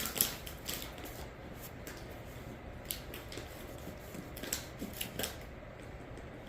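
Scattered light clicks and taps of things being handled, a few each second, over a low steady hum.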